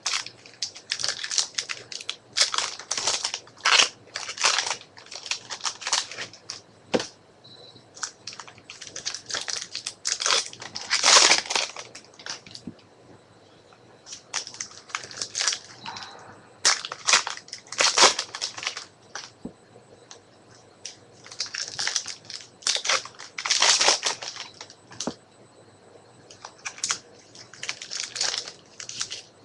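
A stack of Topps Strata football trading cards being shuffled and flipped through by hand: irregular clusters of quick papery swishes and flicks, with short pauses between clusters.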